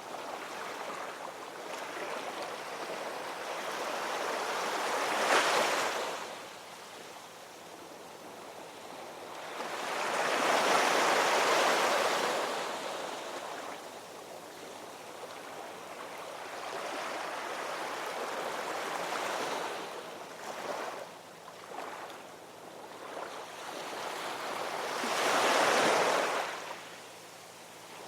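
Ocean waves breaking and washing on shore, rising and falling in slow surges, with three louder breakers about five, eleven and twenty-six seconds in.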